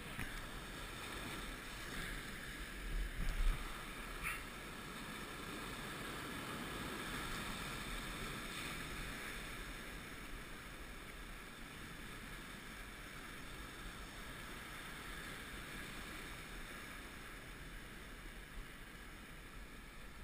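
Surf washing over shoreline rocks, a steady rush, with wind on the microphone; a few low thumps about three seconds in.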